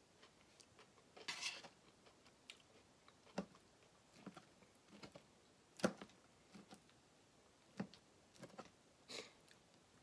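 Fork clicking and scraping against a metal sheet pan as fries are scooped up, with quiet chewing in between. Scattered sharp clicks, the loudest about six seconds in.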